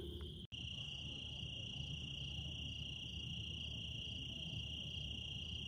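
Crickets trilling, a steady, unbroken high-pitched chorus, with a fainter pulsing insect call above it about twice a second.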